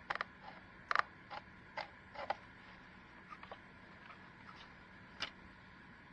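A string of short, irregular clicks and creaks, about a dozen over six seconds, the loudest about a second in, over a faint steady hum.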